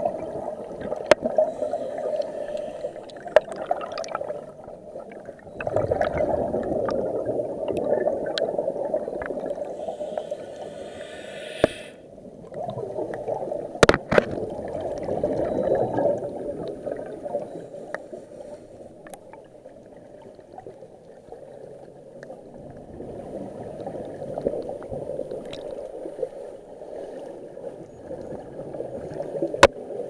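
Underwater rushing and gurgling of bubble-laden water in a strong current, swelling and easing in surges, with a few sharp clicks.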